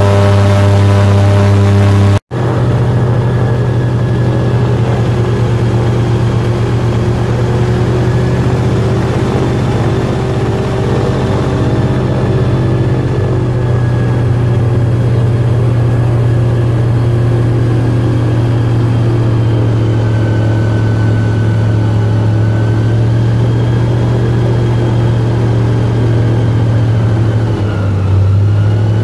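Small airboat's V8 engine and propeller running steadily and loudly. The sound drops out for an instant about two seconds in, and the engine pitch dips slightly near the end.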